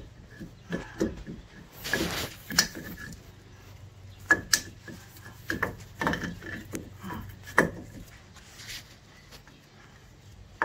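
Scattered knocks and clicks of tools and brake parts being handled during a brake pad job, with a brief scraping rub about two seconds in, over a faint steady low hum.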